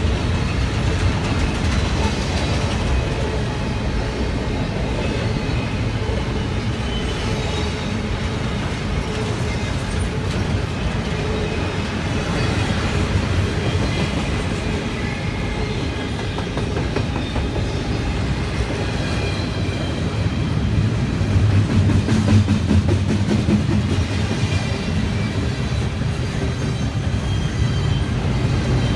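Double-stack intermodal container train's well cars rolling past: a steady rumble of steel wheels on rail with faint high wheel squeals, getting somewhat louder about three-quarters of the way through.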